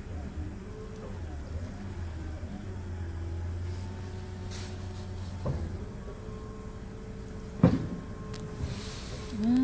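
Low steady droning hum with faint wavering, gliding tones over it, the unexplained noises taken for coming from under the sea in the harbor. The hum fades a little past halfway, and a sharp knock follows about three-quarters of the way in.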